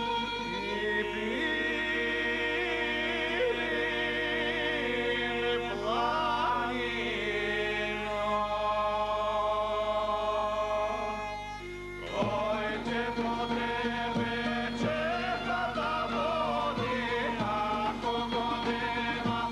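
Macedonian folk song: men singing together over a steady bagpipe drone and folk wind instruments. The sound dips briefly about twelve seconds in, and after that drum beats join.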